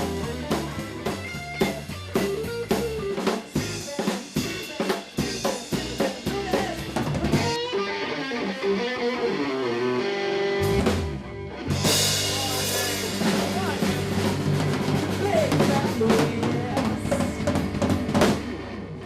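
Band music driven by a drum kit, with snare and bass drum hits under pitched instruments; it breaks off briefly about eleven seconds in, then comes back in fuller.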